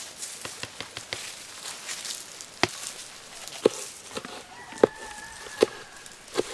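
A heavy cleaver chopping tomatoes and peppers on a wooden board: lighter taps, then sharp knocks about a second apart. A hen gives one drawn-out call between the chops, just past the middle.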